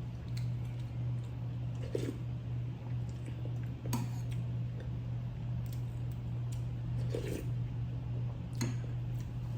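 A few light clicks and taps of dishes and kitchen utensils, spread out over several seconds, over a steady low hum.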